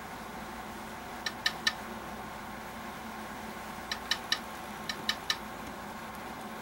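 Mobile phone alert beeping: three quick sets of three short, high beeps, over a steady background hiss.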